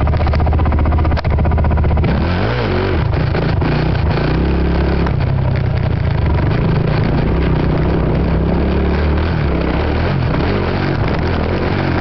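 Honda TRX450R ATV's single-cylinder four-stroke engine running under throttle while ridden, its pitch rising and falling with the throttle. A brief drop in engine sound about a second in.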